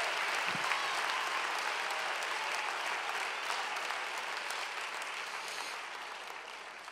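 Church congregation applauding, with a few faint shouts, the clapping slowly dying away.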